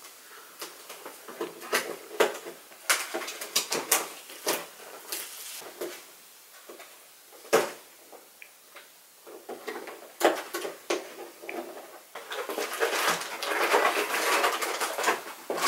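A cardboard kit box being opened and handled by hand: scattered clicks, taps and rustles of the flaps and contents, with a quieter stretch midway. Over the last few seconds the handling gets denser and louder as plastic packaging crinkles.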